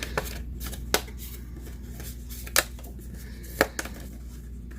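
Cardstock craft pieces being handled and set down on a desk: four sharp taps spread over a few seconds, with a faint steady low hum underneath.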